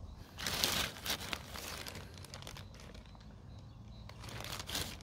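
Black plastic garbage bag rustling and crinkling as a hand handles it: a loud rustle about half a second in, lighter crackles after it, and another rustle near the end.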